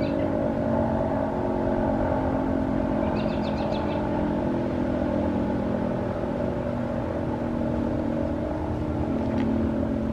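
Federal Signal 2T22 dual-tone outdoor warning siren sounding its steady alert signal, a held chord of several tones. Short high chirps come through twice early on.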